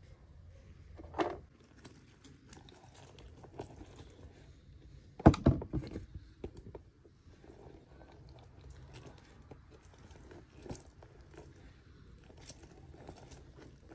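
Oranges and a plastic hand citrus reamer being handled on a metal tray: a knock about a second in, a louder cluster of knocks and clatter around five seconds in, then small clicks and rustles as orange halves are set on the reamer.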